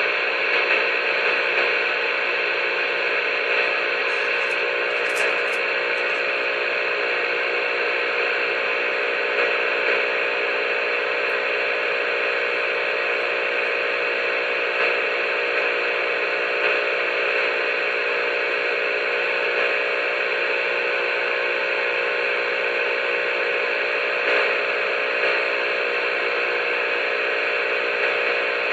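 CB radio static: a steady hiss from the receiver with no one transmitting on the channel.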